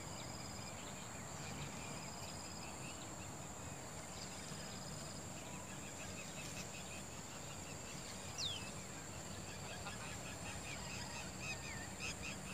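Outdoor riverbank ambience: a steady high insect drone with faint repeated chirps, and a few short falling bird whistles about eight seconds in and near the end.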